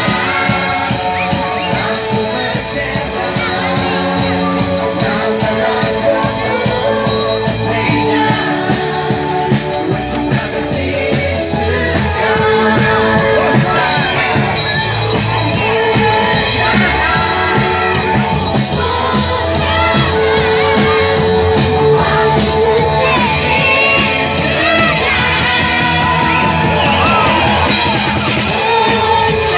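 Live band played loud through a PA: several singers on microphones over electric guitars and a drum kit, performing a song without a break.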